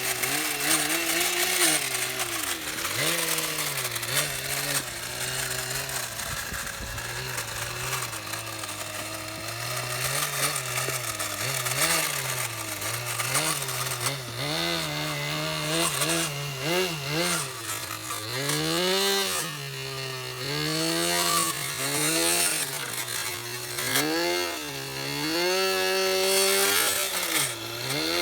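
Small radio-controlled model's motor buzzing, its pitch rising and falling over and over as the throttle is opened and closed while the model is driven around.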